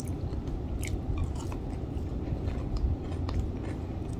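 A person chewing fried chicken, with scattered small clicks from the mouth and the food.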